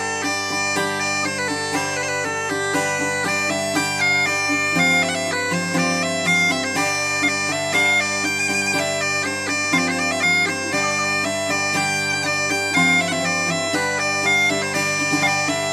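Instrumental anime soundtrack music: a melody over a steady low drone.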